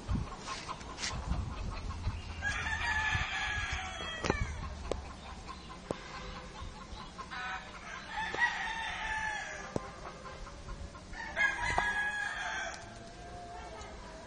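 Roosters crowing: three long crows, the first about two seconds in, another near the middle and the last near the end, with a few sharp clicks between them.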